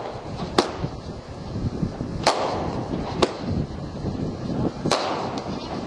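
Fireworks exploding: four sharp bangs at uneven gaps of one to two seconds, the two biggest trailing off in a short fading tail.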